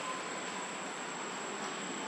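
Steady background hiss with a thin, high, steady whine running through it; no distinct events.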